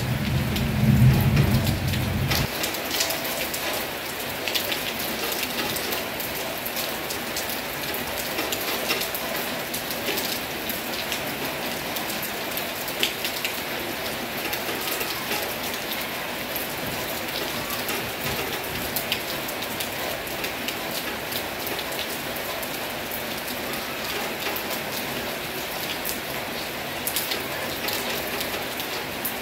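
Heavy rain falling steadily, with many sharp drop hits over an even wash of noise. A low rumble underlies the first two and a half seconds and stops abruptly.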